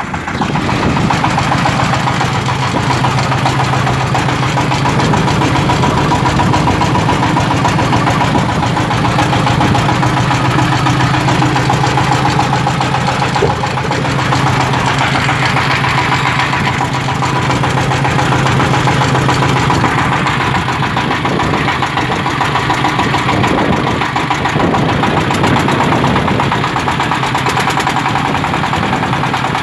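Toyama TDWE30RE-HD 30 hp diesel engine of a homemade farm cart running at a steady speed, its note shifting slightly about twenty seconds in.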